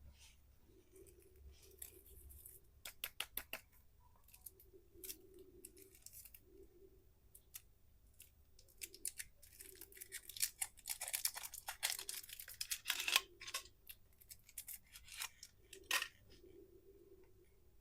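Crisp crackling and clicking of plastic candy wrappers being handled and opened. It comes as scattered sharp clicks, with a dense crinkling run about ten seconds in.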